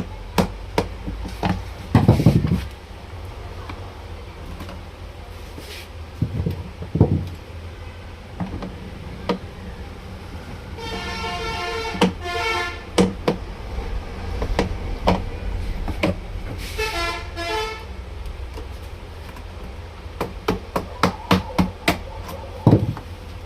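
A horn sounds twice, first for about two seconds and then for about a second, over scattered sharp clicks and knocks from hand-tool work on a plastic children's electric scooter, with a heavier thump about two seconds in.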